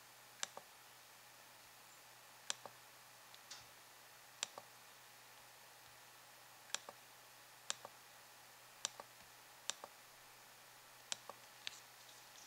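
Computer mouse clicking about eight times, a second or two apart. Each click is a sharp press followed a moment later by a softer release, over a faint steady hum.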